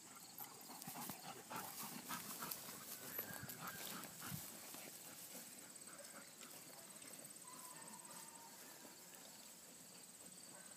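Faint sounds of a black Labrador retriever and its handler moving through a grass field. A run of soft clicks and rustles fills the first few seconds, then it goes quieter, with a steady high-pitched whine throughout.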